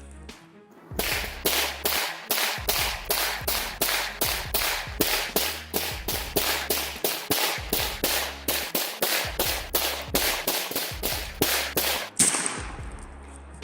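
Rapid semi-automatic fire from an AK-pattern shotgun shot repeatedly into a tree: a string of sharp cracks, about three or four a second, that starts about a second in and stops near the end, over a steady bass line of background music.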